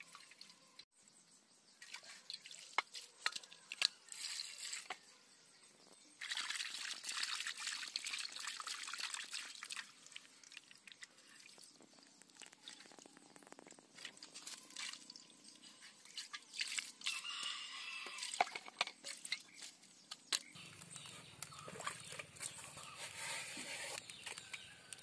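Water splashing and dripping in a metal bowl as cut pieces of fish are rubbed and rinsed by hand, with irregular small splashes and a busier stretch of sloshing partway through.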